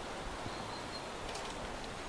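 Outdoor ambience: a steady background hiss with a few faint, short, high bird chirps.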